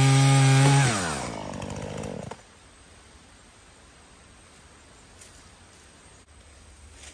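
Gas chainsaw running at full throttle as it cuts through a log, then the revs fall and the saw stops about two seconds in; a faint quiet background follows.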